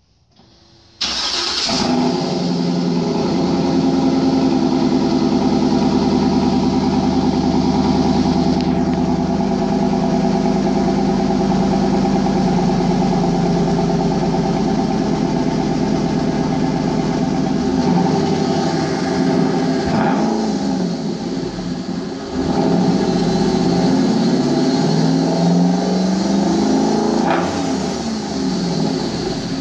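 A Chevrolet Silverado's 6.0-litre V8 cranks briefly and fires about a second in, then settles into a steady idle. In the last third it is revved a few times, each rev rising and falling.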